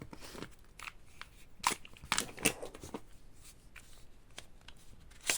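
Scattered clicks and knocks of airsoft pistol magazines being pulled out of the grips and set down, with light handling noise; the loudest click comes near the end.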